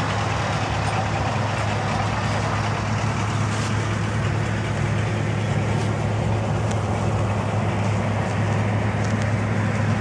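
An engine idling steadily, a constant low drone that does not change in pitch or level.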